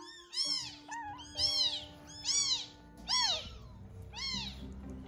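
Newborn kitten crying for milk while being syringe-fed: about seven short, high-pitched cries, each rising and falling in pitch, roughly one a second.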